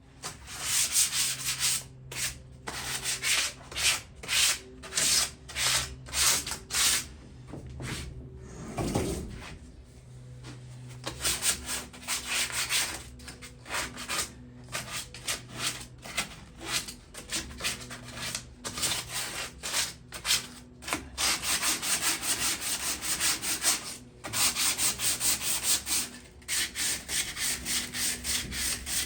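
Sandpaper rubbed back and forth by hand over a rusted metal patio chair, in quick rhythmic strokes about two a second, scouring off surface rust before repainting. The strokes pause briefly twice.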